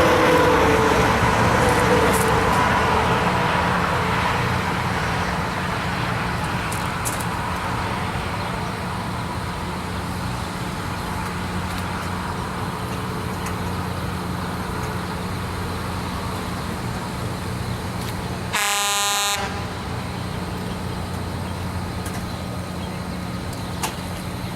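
Loram RG308 rail grinder moving away, its noise fading over the first several seconds with slowly falling tones, over a steady low engine hum. A single short horn toot sounds about three-quarters of the way through.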